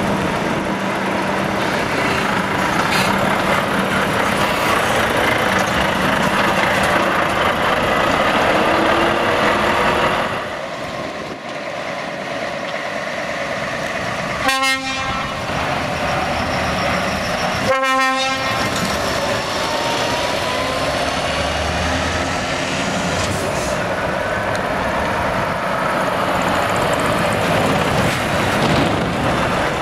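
Heavy truck diesel engines running as tractor units pull out and drive past. Two short blasts of a multi-note air horn sound about three seconds apart near the middle, then an engine revs up as a truck accelerates away.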